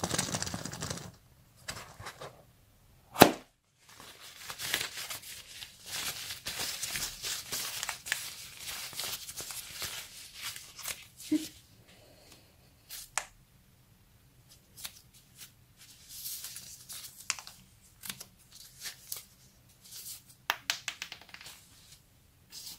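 Gloved hand squishing and pressing foamy slime in a bowl, a wet crackling and popping that comes and goes, with one sharp snap about three seconds in. Later there are only scattered light clicks and short squishes as small candy eggs are set into the foam.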